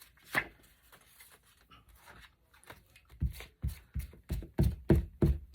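A quick run of soft thumps and taps on the craft desk, about three a second, starting about three seconds in, from paper being worked by hand on the table. A single click comes just before.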